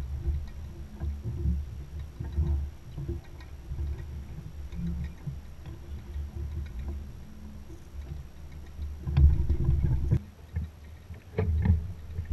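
Water lapping and sloshing against the hull of a small 16-foot trimaran under sail, an uneven low rumble with a few sharper slaps in the last few seconds.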